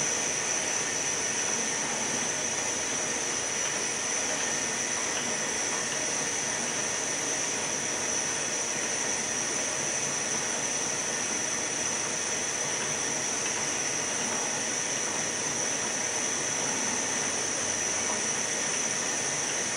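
Gas torch flames hissing steadily while a glassblowing lathe spins, with a constant high whine over the noise. The hand torch is preheating the lathe's stem holder before a tube mount goes in.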